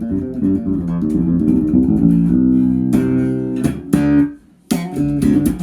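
Ibanez EHB1506MS six-string bass being played: a run of plucked notes, a few held notes ringing, a brief break about four seconds in, then sharp percussive notes near the end.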